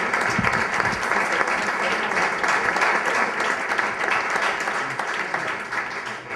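An audience applauding steadily in a room, the clapping dying away near the end.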